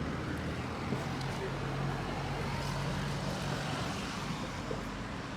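A vehicle engine running steadily, a low even hum with background noise.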